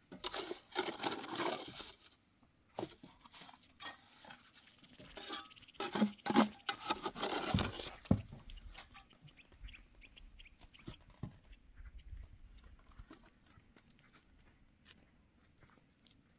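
Steel trowel scraping wet cement mortar out of a bucket and slapping it onto concrete blocks, in two loud scraping stretches of a second or two each, followed by quieter scattered taps and clicks.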